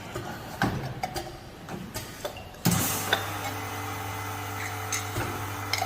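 Semi-automatic desktop vacuum capping machine: a few light clicks and knocks, then about two and a half seconds in a sudden hiss of air and a steady motor hum start and keep running.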